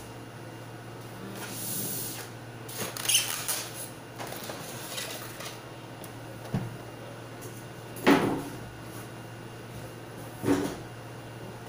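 Unpacking a printer by hand: packaging rustles and crinkles, then three separate knocks, the loudest about eight seconds in.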